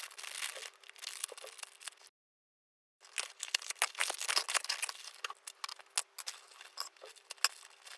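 Toy packaging being opened by hand: a run of small crinkling, crackling and clicking sounds. The sound drops out completely for about a second, two seconds in.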